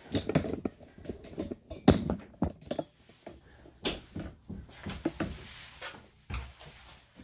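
Handling noise as a small dog is carried over and lowered into a bathtub: irregular knocks, bumps and rustling, with a heavier low thump about six seconds in.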